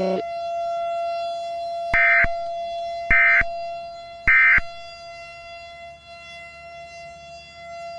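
Three identical short, shrill bursts of Emergency Alert System digital data tones, about a second apart, in the pattern of the end-of-message code. Under them a steady single-pitched electronic tone slowly fades.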